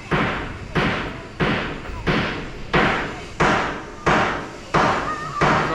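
Construction hammering: heavy blows struck in a steady rhythm, about three every two seconds, each ringing briefly.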